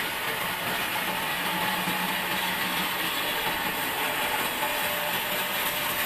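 Sawmill band saw running and cutting lengthwise through an old pine beam, a steady, unbroken noise of the blade in the wood.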